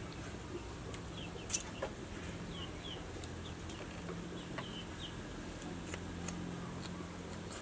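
Short bird chirps now and then, with a few sharp clicks over a low steady hum.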